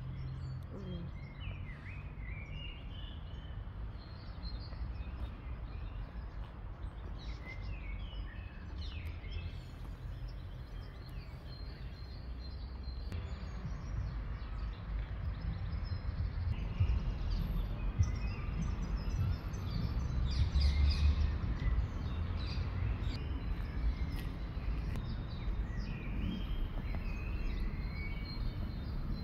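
Small songbirds chirping and singing in short scattered calls, over a steady low outdoor rumble that grows heavier in the second half.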